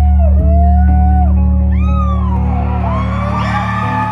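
Live rock band music at a concert: a sustained low bass note under a held melody line that slides and bends. Near the end, crowd cheering and whooping swell over the music.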